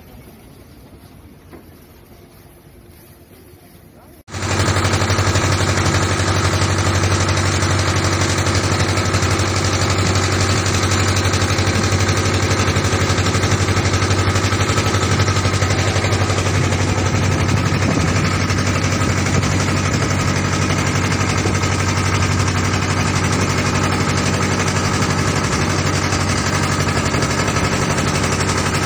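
A river boat's engine running steadily at close range, a loud even drone with a rapid beat. It cuts in suddenly about four seconds in, after a quieter stretch.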